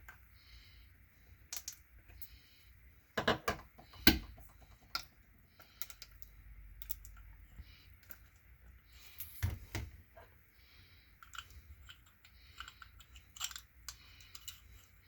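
Scattered clicks and clacks of the DeWalt DCD995 hammer drill's gearbox parts being handled, with the gear selector being fitted and shifted by hand. The louder clacks come about three to four seconds in and again near nine and a half seconds.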